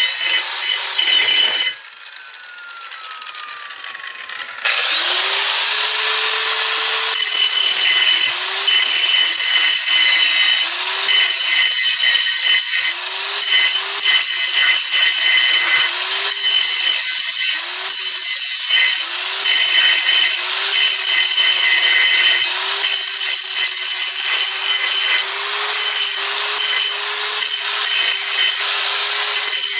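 Electric angle grinder with a flap disc grinding steel. Near two seconds in the grinder is switched off and its whine falls as it spins down. About five seconds in it starts again with a rising whine and grinds on, its motor pitch dipping and recovering again and again as the disc is pressed into the metal.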